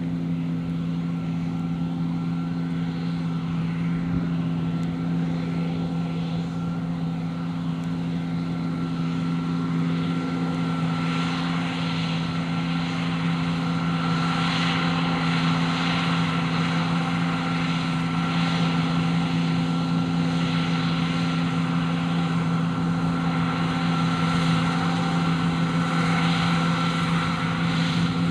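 John Deere T560 combine harvester working in a crop of oats: a steady engine and machinery drone with a constant low hum, growing slightly louder over the second half.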